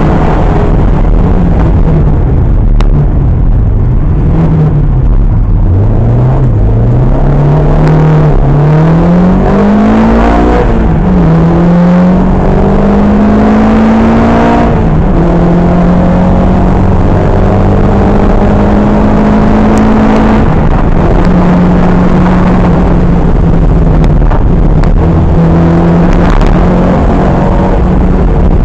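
Historic rally car's engine heard from inside the cabin, very loud. The revs sink as it slows early on, then climb hard with a drop in pitch at each upshift, then hold steady at speed, over constant road noise.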